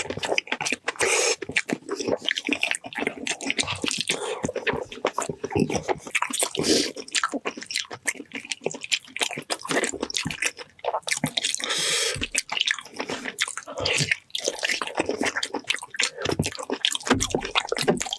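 Close-miked wet chewing of braised beef feet (beef trotters), with dense, irregular clicks and sticky mouth noises.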